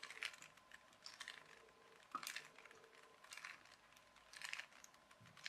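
Plastic Rubik's Cube faces being turned by hand, a faint clicking rattle about once a second, one cluster for each quarter turn.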